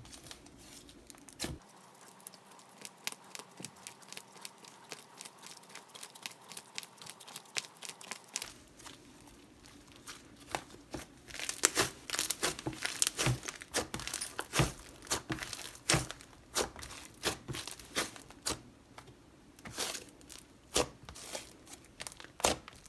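Butter slime being stretched and pressed by hand, giving off quick sticky clicks and crackles that come thicker and louder about halfway through.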